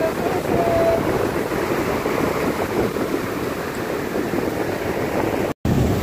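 Ocean surf breaking and washing up on a sandy beach, a steady rush, with wind on the microphone. The sound cuts out for an instant near the end.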